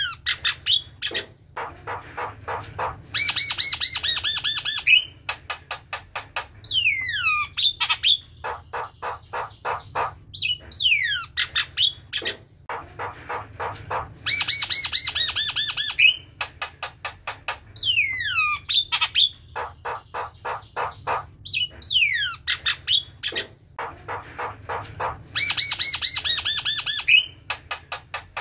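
Javan myna singing its chattering song: rapid runs of clicking notes alternate with downward-sliding whistles and harsh squawky phrases, over and over without a break.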